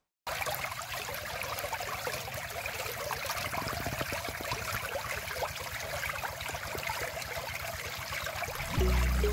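Shallow stream of water running fast over stones, a steady babbling and splashing that starts abruptly just after the beginning. Background music comes in near the end.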